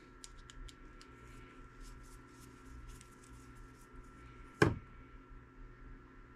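Faint small clicks of a screwdriver working a tiny screw in a plastic RC axle drive-shaft part, with one louder knock a little past halfway as the screwdriver is set down on the wooden bench.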